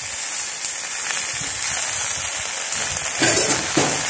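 Steady sizzle and crackle of a hot wok as bitter gourd leaves are tipped into the oil. Near the end, two louder scrapes as a metal spatula starts stirring the leaves.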